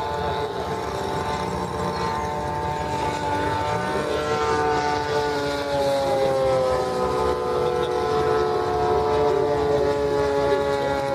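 Radio-controlled model airplanes flying overhead: the steady whine of their motors and propellers, several tones at once that drift slowly in pitch, over a low rumble.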